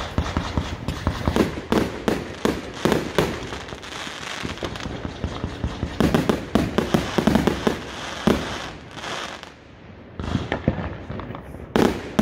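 Fireworks going off in a rapid string of bangs and crackling pops, thickest about six to seven seconds in. They thin out briefly around ten seconds, and one loud bang comes near the end.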